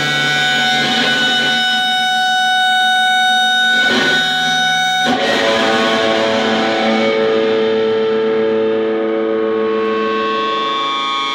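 Electric guitar played with a bow, ringing out in sustained, droning tones through effects and distortion. The held notes change twice, about four and five seconds in, and the hiss above them fades after the midpoint.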